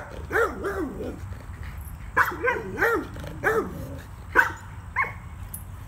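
Dog barking and yelping in about eight short calls that rise and fall in pitch, in a resisting, protesting tone from a dog during a mating attempt.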